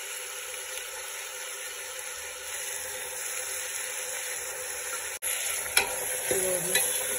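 Chopped onions and ginger-garlic paste sizzling steadily in hot mustard oil in an aluminium pressure cooker, stirred with a metal spoon. The sizzle cuts out for an instant about five seconds in, followed by a couple of sharp clicks of the spoon against the pot.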